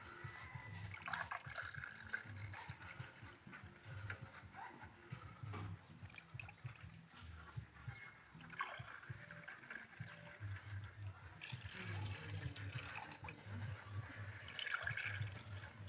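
Cow's milk being poured from an aluminium pot into a glass cup and tipped into an aluminium pan: faint trickling and splashing in several separate pours.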